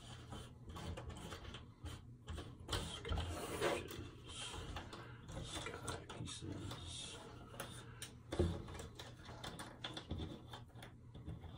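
Cardboard jigsaw puzzle pieces being slid, picked up and shuffled across a tabletop by hand: soft scraping with many small irregular clicks and taps, and one louder knock about two-thirds of the way through.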